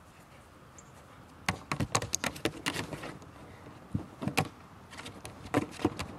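A dog's paws knocking and scraping on a hollow upturned plastic tub as it climbs onto it, in several bursts of sharp clatter.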